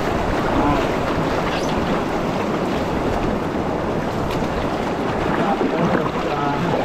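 Rushing river water around a moving canoe, a steady loud wash with wind buffeting the microphone.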